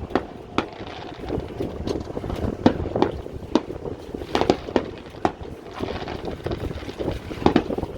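Fireworks going off: a string of irregular sharp bangs and pops, more than a dozen, over a low wind rumble on the microphone.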